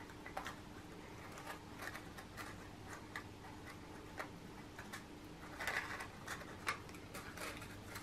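Faint, irregular small ticks and crinkles of paper cake cases and craft string being handled as a knot is tied, with a few soft rustles around six seconds in. A faint steady low hum runs underneath.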